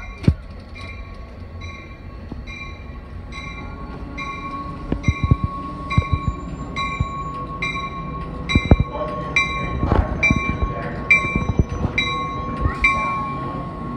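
Amtrak locomotive bell ringing steadily, about one and a half strokes a second, over a steady whine, with a few irregular heavy knocks as the train moves through the station.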